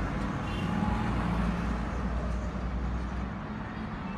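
Road traffic noise: a motor vehicle's engine running with a steady low rumble, under street hiss.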